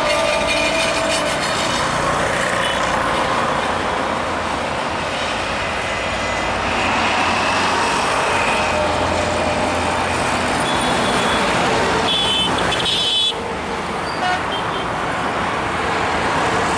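Steady, loud rumble of a passing passenger train mixed with road traffic noise, with a brief high horn toot late on.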